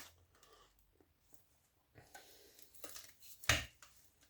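Quiet handling of scrap pieces: a few faint clicks and rustles, then one sharp knock about three and a half seconds in.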